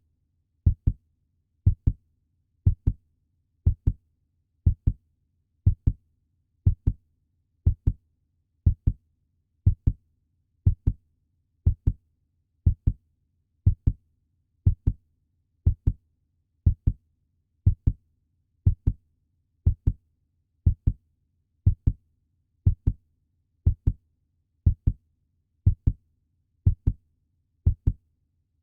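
Heartbeat sound effect, billed as a puppy's heartbeat: paired lub-dub thumps in an even rhythm of about one beat a second, over a faint low hum.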